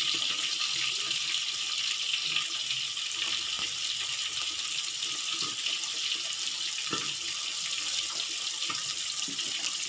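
Chopped garlic, spring onion and bird's-eye chillies sizzling steadily in melted margarine in a wok.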